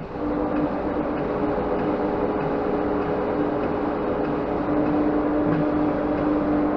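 A workshop machine motor starts up suddenly and runs steadily, with a constant hum over a mechanical rush.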